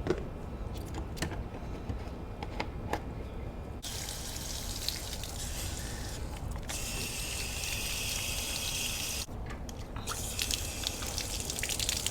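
Liquid running and pouring steadily for about five seconds in the middle, with scattered clicks and knocks of handling before and after: water or soap going into the foam cannon's bottle.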